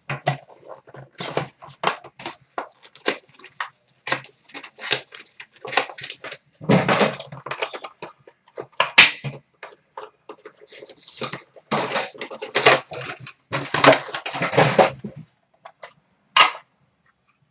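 Hands opening a cardboard hockey-card box and pulling out its cards: irregular clicks, scrapes and rustling of cardboard and card wrapping, with a few longer rustles in the second half.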